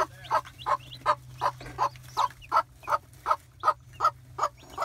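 Broody mother hen clucking in a steady, even rhythm, about three short clucks a second, as she sits on her nest of hatching chicks.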